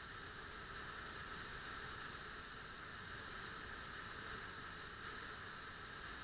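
Steady rushing hiss of an underground waterfall, the Chapter House Waterfall, pouring down a cave shaft.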